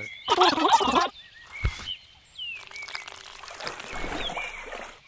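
A loud burst of wet, splashy noise, then a single sharp click and a softer stretch of wet rustling, with a few short high chirps scattered through it.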